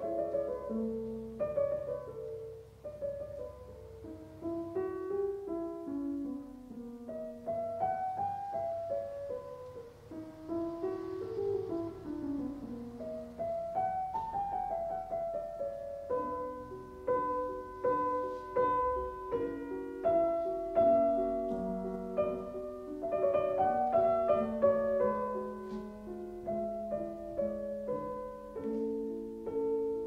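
Background piano music: flowing runs of single notes rising and falling, filling out into fuller, repeated chords about halfway through.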